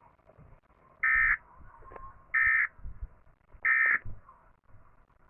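Emergency Alert System end-of-message data bursts: three short, harsh buzzing bursts about a second and a third apart, the signal that closes an EAS alert.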